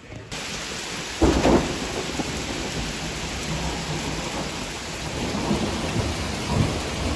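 Heavy rain pouring down in a thunderstorm, with thunder rumbling. A loud burst of thunder comes about a second in.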